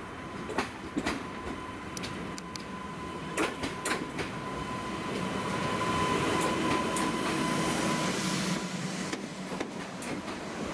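PESA Elf EN63 electric multiple unit passing close by, its wheels clicking over rail joints and points, loudest about six to eight seconds in as it goes past.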